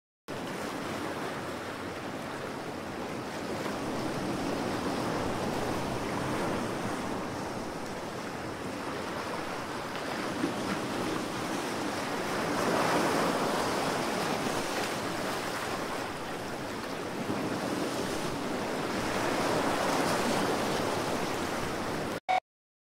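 Ocean surf washing onto a rocky shore, rising and falling in slow swells, with wind gusting on the microphone. It cuts off suddenly near the end.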